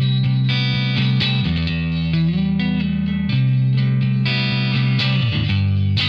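Telecaster-style electric guitar played through a Bad Cat Cub valve combo amp: a run of chords and sustained notes, each ringing into the next, with a downward slide about five seconds in.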